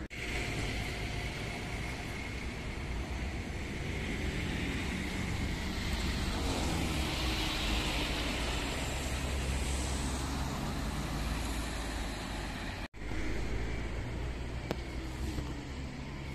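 City bus engine running as the bus drives round a roundabout and passes close by, swelling loudest about halfway through. After a sudden break, another city bus is heard driving on the roundabout with its engine running.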